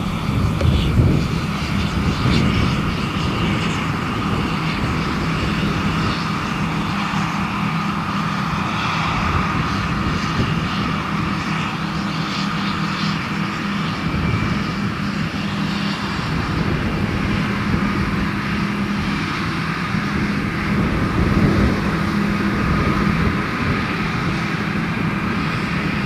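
John Deere combine harvester running steadily through a wheat field: an even mechanical drone of engine and threshing machinery with a few steady tones.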